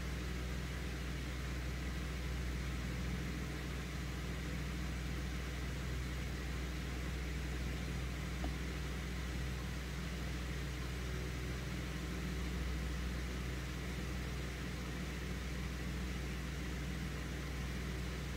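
Steady low mechanical hum with a hiss over it, unchanging throughout.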